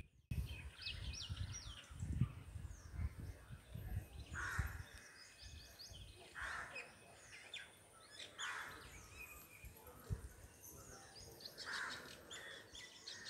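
Birds chirping, with a harsher call repeating about every two seconds, and a low rumble in the first few seconds.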